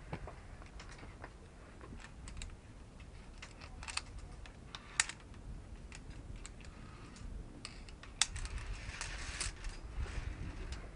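Climbing on rock during a via ferrata descent: irregular sharp clicks and knocks of gear and boots on stone, with a stretch of scraping about eight seconds in.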